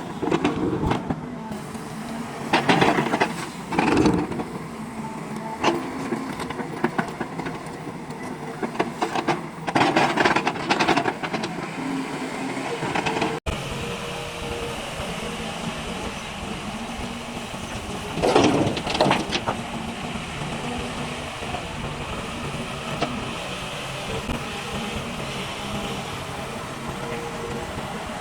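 Heavy diesel engine of a JCB machine running steadily, with several louder noisy surges over it.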